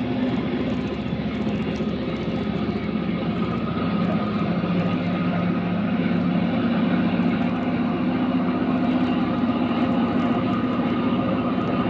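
Rail grinder train running, a steady drone of engines with several held tones over a dense rushing noise.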